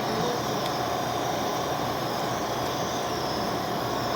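Steady mechanical hum and hiss at an even level, with a faint steady tone running through it.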